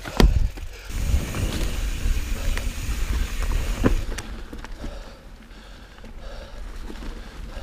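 Mountain bike on a leaf-covered dirt trail: tyres rolling and rattling over the ground with wind rumbling on the microphone, and sharp knocks from the bike hitting bumps, once just after the start and again about four seconds in. The noise is loudest through the first half and eases after the second knock.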